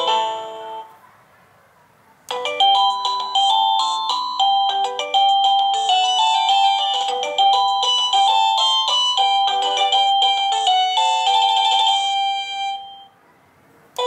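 IntendVision wireless doorbell receiver's electronic chime: the tail of one melody dies away in the first second. After a short pause, a new tune of quick, clear notes plays for about ten seconds.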